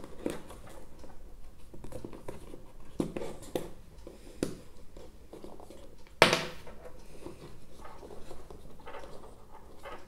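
Handling noise as fingers pull a neckband earphone's cable and metal housings out of the snug grooves of a cardboard tray insert: scattered light taps, scrapes and rustles, with one sharper knock about six seconds in.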